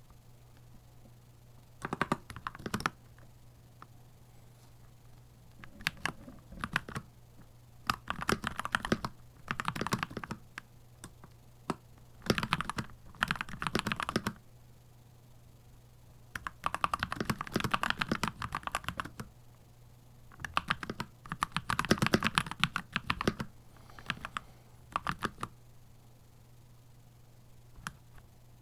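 Keychron C2 Pro 8K mechanical keyboard being typed on in bursts of rapid keystrokes a second or two long, with short pauses between them. A faint steady low hum runs underneath.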